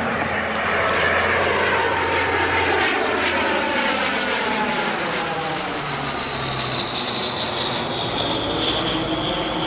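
Engines of a military transport aircraft flying past, with a steady engine noise and a high whine that slowly falls in pitch as the plane goes by.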